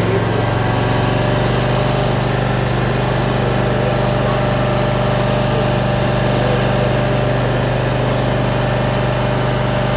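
An engine running steadily at a constant speed, with an even drone that neither revs nor changes.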